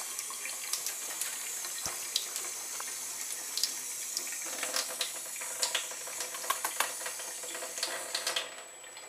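Kitchen mixer tap running a thin stream into a stainless steel sink: a steady splashing hiss with scattered small clicks and drips. The water noise drops off sharply about eight seconds in.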